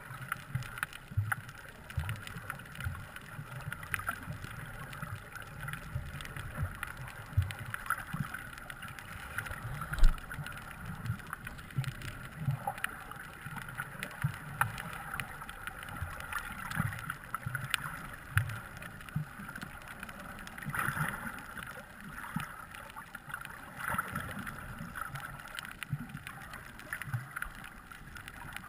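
Muffled underwater sound heard through a waterproof camera housing: water moving and irregular low thuds from the swimming, with one sharp knock about ten seconds in.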